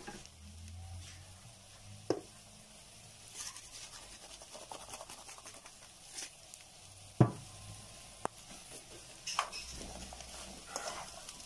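Zucchini and mushrooms cooking in butter in a frying pan over low heat, sizzling faintly, with a utensil stirring and a few sharp knocks against the pan, the loudest about 7 seconds in.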